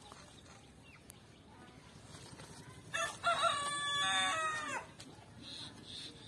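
A rooster crowing once, about three seconds in, lasting just under two seconds.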